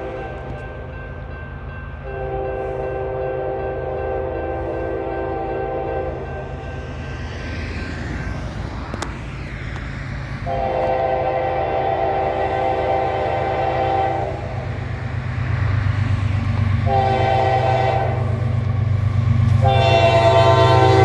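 Horn of a CSX GE ES44AH locomotive sounding the grade-crossing signal, two long blasts, a short one and a long one, after the tail of an earlier blast. It leads a loaded coal train. The low rumble of the train's diesel locomotives grows louder as it approaches.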